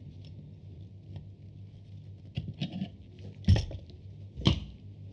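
Small handling sounds of a vintage camera body being worked with metal tweezers: a few light ticks and clicks, then two sharp knocks about a second apart, over a low steady hum.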